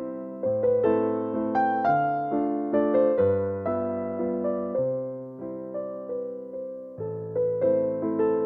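Background piano music: a slow melody of single struck notes over chords, each note fading after it is struck.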